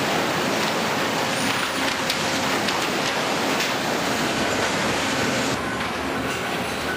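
Lumber crib stacker running: a steady, dense mechanical clatter of the transfer deck and moving boards, with scattered knocks. It gets a little quieter about five and a half seconds in.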